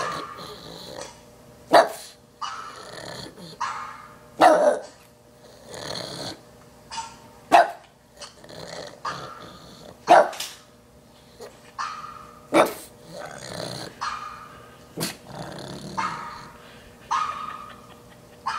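A pug barking in sharp single barks about every two and a half seconds, with softer barking and growling between them.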